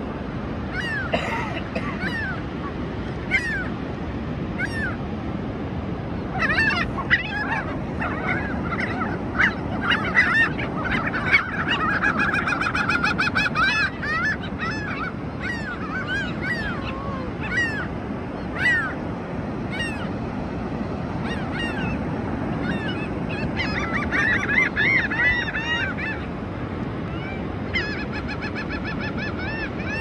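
A flock of laughing gulls calling over one another in many short squawks that rise and fall in pitch, thickest around the middle and again near the end. A steady low rush of surf runs underneath.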